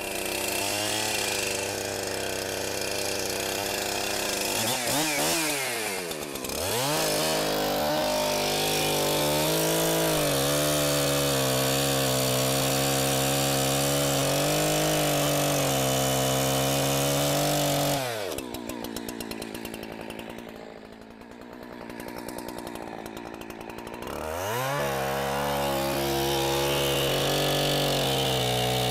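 Gas chainsaw running at full throttle, cutting through a large oak log. Partway through it drops back to idle for several seconds, then revs up again and goes back into the cut.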